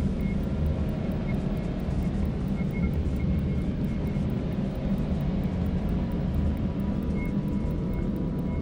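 Ambient drone music: a steady low rumbling drone with faint, thin high tones coming and going above it.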